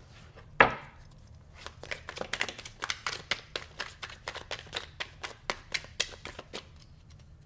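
Deck of tarot cards shuffled by hand: a quick run of papery clicks and slaps, several a second, lasting about five seconds. It is preceded by a single sharp thump about half a second in.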